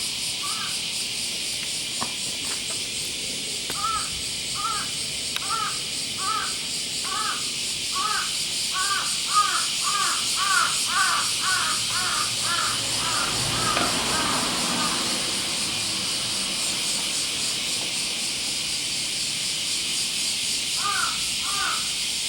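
A bird calling in a long series of short, arched calls, about two a second, that stops for several seconds and starts again near the end. Under it runs a steady high hiss with a fine rapid pulse, and a brief broader noise swells just after the middle.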